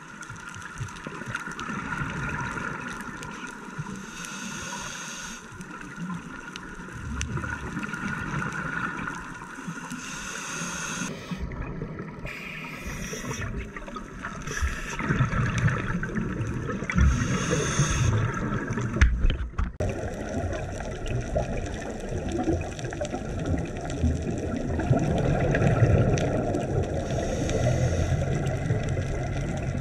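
Underwater sound through a dive camera housing: a scuba diver's regulator breathing, with a hiss that comes back every several seconds and a gurgling rush of exhaled bubbles. A steady faint hum runs under the first third.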